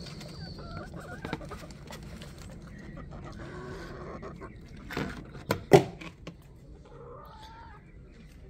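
Hens clucking softly, with several sharp loud knocks a bit past halfway. It opens with a dog chewing and crunching apple peel, heard as a run of small clicks.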